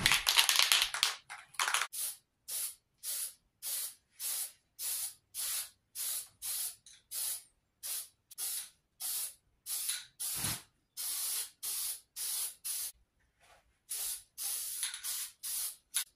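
Green spray paint hissing out in short, evenly spaced puffs, about three every two seconds, after a longer first burst, as a wooden bow is given its coat of green. The puffs pause briefly near the end, then resume.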